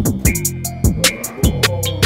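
Background music with a drum-machine beat: sharp drum hits several times a second over deep bass kicks that drop in pitch.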